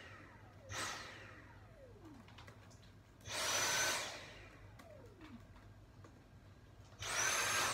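Handheld stick vacuum switched on in three short bursts: a very brief one, then two of under a second each. Each time the motor's high whine cuts off and falls away in pitch as it spins down.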